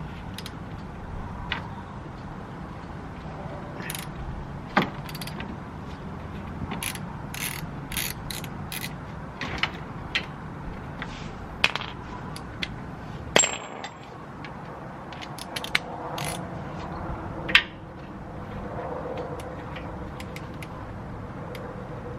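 A 3/8-inch socket ratchet clicking in short runs while 14 mm bolts on the belt tensioner and idler pulley are turned, mixed with scattered metallic clicks and taps of the tool on the fittings. A steady low hum underneath stops about two-thirds of the way through.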